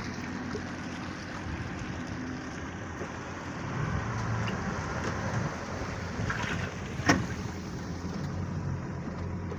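A boat engine idling steadily under a rush of wind and water noise, with one sharp knock about seven seconds in.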